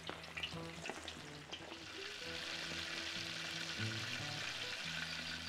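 Chicken wings sizzling and crackling as they fry, the sizzle thickening and growing louder about two seconds in. Faint music plays underneath.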